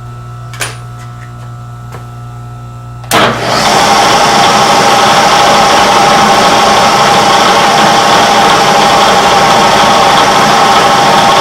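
Milling machine spindle switched on about three seconds in, jumping suddenly in level and then running steadily with a high whine at the speed set for a small 7/64-inch drill. Before it starts there is a low steady hum and a couple of light clicks.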